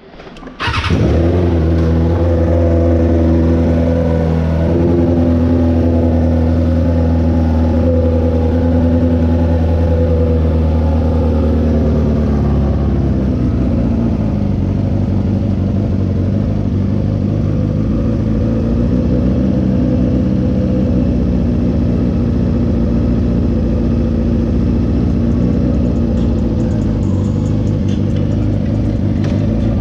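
Motorcycle engine starting about a second in and running at a steady idle, then turning rougher and more uneven from about halfway, as if being revved or ridden off. The exhaust has a leak.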